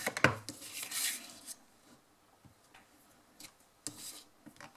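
Clear acrylic stamp block clacking sharply on the ink pad and paper at the start, then rubbing and sliding sounds as it is pressed and moved over the paper, with a few light taps after.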